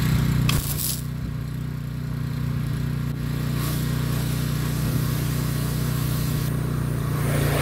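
Pressure washer running steadily, its jet hissing as it sprays a greasy two-speed axle shift unit clean.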